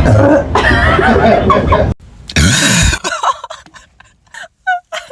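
Women burping: a long, low, rough burp, then after a cut a shorter burp whose pitch rises and falls, followed by a few small coughs and throat sounds.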